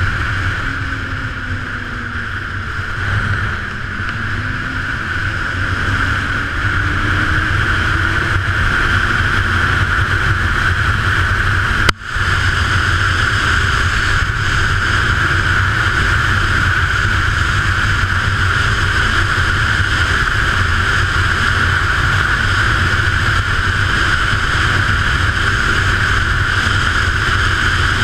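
Ski-Doo Renegade 900 ACE snowmobile's three-cylinder four-stroke engine running under way, with a low rumble and a steady high whine; its pitch rises and falls in the first few seconds, then it gets louder and holds steady. The sound cuts out for an instant about twelve seconds in.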